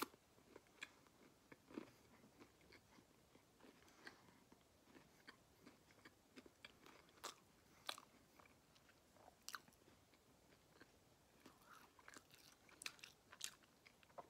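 A person chewing a mouthful of chicken sandwich: faint, irregular soft mouth clicks, a little busier near the end.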